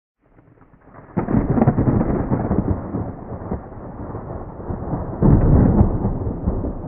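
Thunder rumbling before a storm: a loud crackling thunderclap about a second in that rolls and fades, then a second loud clap near the end that rumbles away.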